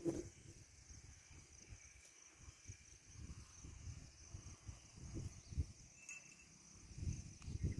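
Insects in the grass keep up a steady, faint, high chirring, under uneven low rumbles of wind on the microphone.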